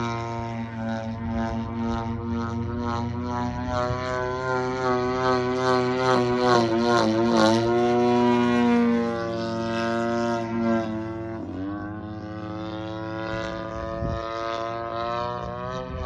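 Two-stroke GP-76cc petrol engine of a giant-scale RC aerobatic plane running in flight with its 24x9 propeller, the pitch wavering up and down through the manoeuvres. About eleven and a half seconds in, the pitch dips sharply, then climbs again.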